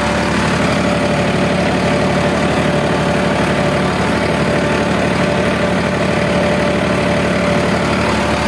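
Farmtrac 60 Powermaxx F41 tractor's diesel engine running steadily at about 1900 rpm under load, pulling an 18-disc harrow.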